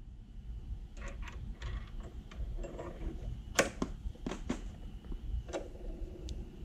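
Light metallic clicks and taps as a steel bolt is handled against the jaws of a bench vise and the vise's sliding handle bar is moved, about ten irregular clicks with the sharpest a little past halfway. A low steady hum runs underneath.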